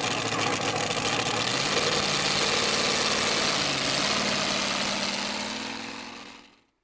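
Supercharged engine of a two-wheel-drive pulling truck idling, its pitch creeping up slightly through the middle. It fades out near the end.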